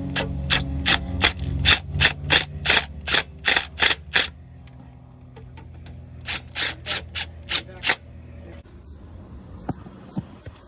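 Hand ratchet wrench clicking as it runs in the starter's mounting bolts: a steady run of clicks, about three a second, then a short pause and a second, shorter run of clicks.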